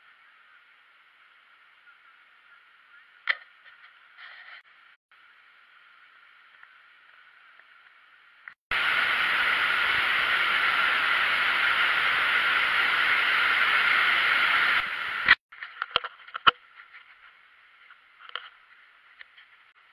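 A loud, steady rushing noise starts suddenly about nine seconds in and cuts off sharply about six seconds later. Around it is faint, thin-sounding background with a few clicks.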